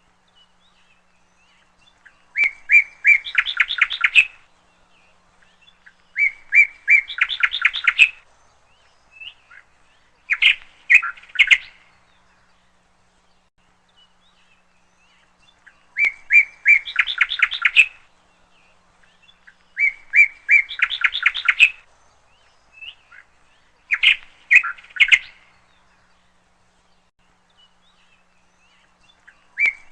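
A songbird singing the same short phrase over and over, every four to six seconds: a few even notes, then a quick run of notes.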